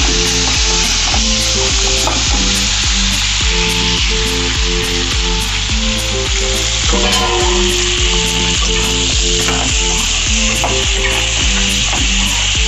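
Chicken curry ingredients frying in hot oil in a pan, sizzling loudly and steadily, just after being added.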